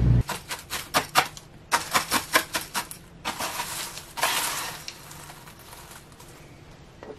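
Wooden spoon scooping baked oat granola off parchment paper: a quick run of crisp clicks and taps, then a longer crunchy scrape and rustle of the granola and paper that fades near the end.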